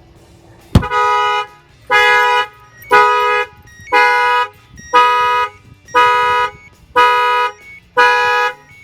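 A single knock on the van's window, then the Excalibur 1510 car alarm going off, set off by its shock sensor: loud honks, about one a second, each about half a second long.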